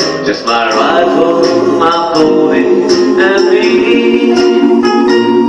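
Music: the backing track of a slow cowboy ballad plays loudly, with a held melody line gliding over steady chords.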